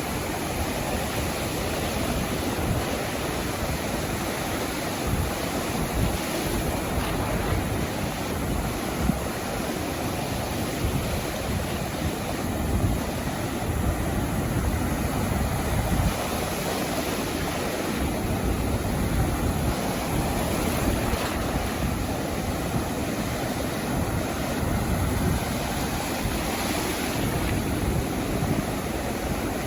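Sea surf washing continuously onto a sandy beach, a steady wash of waves with gentle surges, with wind rumbling on the microphone.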